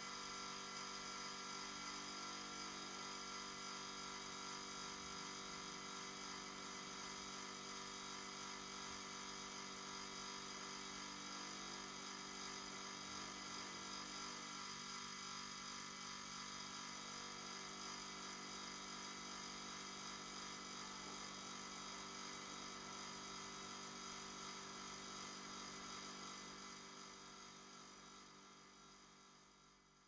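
Refrigerator running: a faint, steady hum made of many fixed tones that fades out over the last few seconds.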